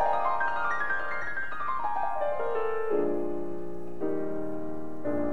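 Background piano music: a run of notes climbing and then falling, then held chords struck about three and four seconds in.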